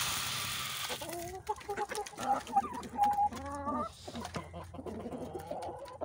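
Chicken feed pouring out of a plastic bucket with a hiss for about the first second and a half, then chickens calling with drawn-out clucks. Near the end there are only scattered faint clicks.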